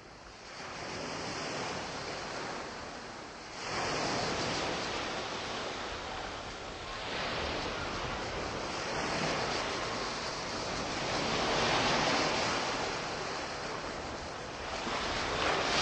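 Sea waves washing ashore, swelling and falling back about every three to four seconds.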